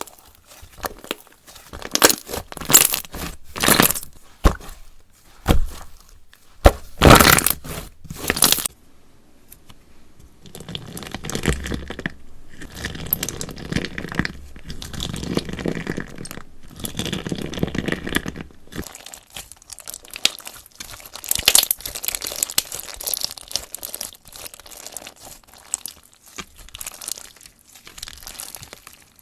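Hands squishing, stretching and folding a mass of mixed slime. For the first several seconds there are separate loud squishes, then the slime is worked without a break until the end.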